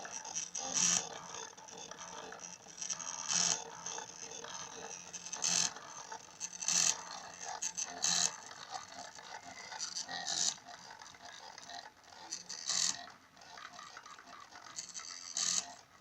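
Small stepper motors of a mini CNC plotter built from DVD-drive mechanisms running, with short louder buzzing moves every second or two over a steady mechanical rustle.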